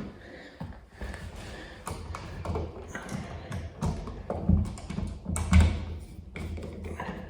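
Scattered taps, clicks and low thumps of hand work with tools and electrical hardware during outlet installation. The loudest two thumps come about four and a half and five and a half seconds in.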